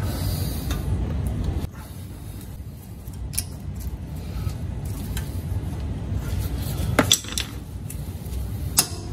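Metal clicks and clinks of steel brake-pad spring clips being pressed into a rear brake caliper bracket, a few sharp clicks with the loudest about seven seconds in and another near the end.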